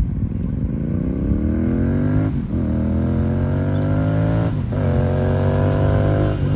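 Royal Enfield Continental GT 650's parallel-twin engine, through a Red Rooster aftermarket exhaust, accelerating hard up through the gears. The engine pitch climbs and drops with upshifts about two and a half and four and a half seconds in, and again at the end. It grows louder as the bike approaches.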